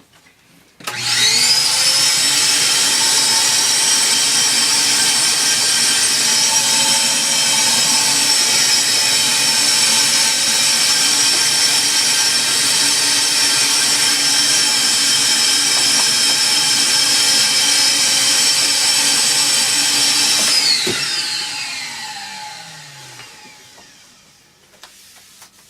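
Electric motor of a power tool starting up with a quick rise in pitch, running steadily and loudly for about 20 seconds, then switched off and spinning down with a falling whine.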